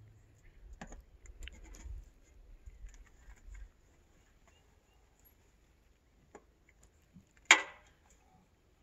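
Faint scattered clicks and small handling noises of hands and hardware at work on a ladder, then one sharp clink about seven and a half seconds in, loud enough to be taken for a dropped lag bolt.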